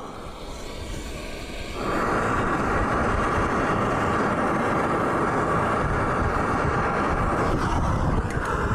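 Handheld gas torch flame hissing steadily while it heats a rusted, seized brake line nut to free it. The flame is softer for the first two seconds, then holds at full strength.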